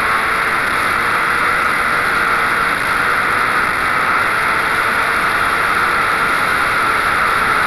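Onboard a Wolf GB08 Honda sports prototype at speed: a loud, steady rush of wind over the microphone, with the car's engine heard faintly underneath.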